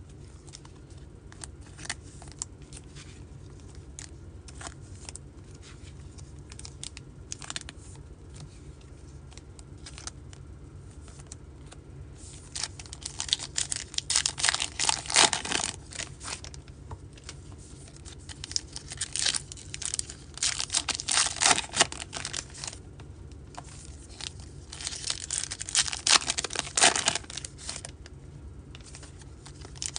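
Baseball card pack wrappers being torn open and crinkled by hand, in three loud bursts of rustling from about halfway through, after a stretch of faint handling clicks.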